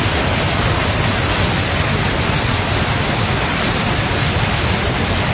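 Muddy floodwater rushing past in a torrent: a loud, steady rush of noise.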